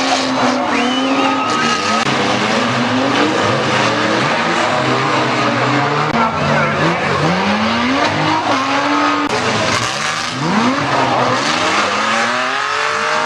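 Several unlimited banger-racing cars' engines running hard together, their revs rising and falling as they lap the oval, with tyres skidding on the track.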